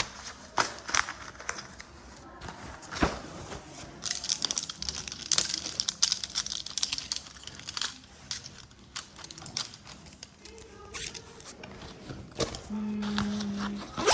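Foley of a spilled backpack: pens and pencils clattering in many small clicks and knocks, with paper rustling and crinkling from rummaging and a notebook's pages. Near the end a steady buzzing hum of about a second imitates a phone vibrating.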